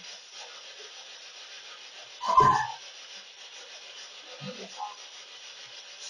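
Spirit box (SB7) sweeping through radio stations: a steady hissing, scratchy static, broken about two and a half seconds in by one short, louder burst.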